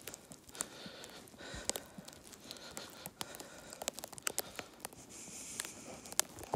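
Sleet pellets ticking irregularly on a jacket, a scatter of sharp little ticks over a faint rustle.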